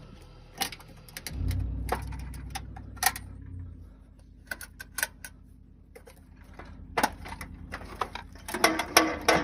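Metal hand tools and fasteners clinking and clicking in irregular bursts, with a quick run of clicks near the end. About a second in, a low hum starts and lasts about two seconds.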